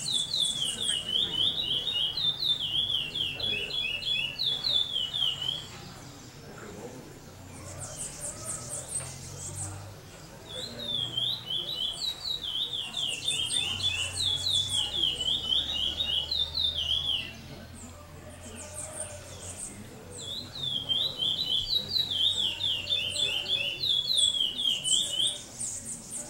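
A songbird singing three long songs of rapid, repeated up-and-down notes, each lasting about five to six seconds, with short pauses between them. Fainter, higher chirps come from other birds.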